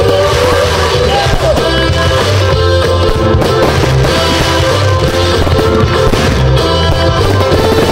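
Loud rock music with a singing voice over a pulsing bass line.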